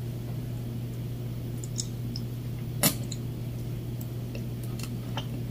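Faint eating sounds as a cooked reef eel is lowered into the mouth: a few soft mouth clicks and smacks, with one sharper click about three seconds in, over a steady low hum.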